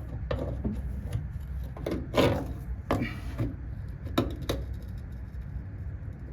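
Hand tools working on a seized brake line fitting on a truck's front suspension: a dozen or so separate sharp metal clicks and knocks at irregular intervals.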